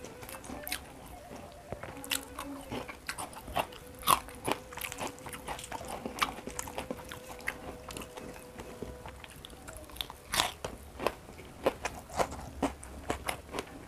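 Close-miked chewing with many sharp, irregular crunches: a person eating fried carp and rice by hand, with a faint steady hum underneath.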